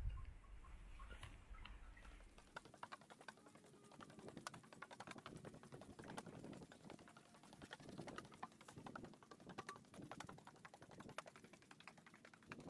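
Faint footsteps on a wooden pontoon deck, with many small irregular clicks and taps from the boards and fittings underfoot.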